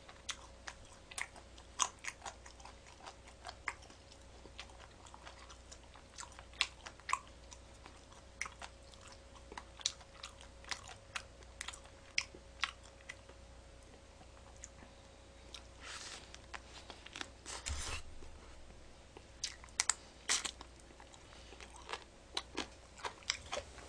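Crispy fried chicken being chewed and crunched close to the microphone, with many short crisp crunches and smacks scattered throughout, and longer runs of crunching about sixteen and eighteen seconds in.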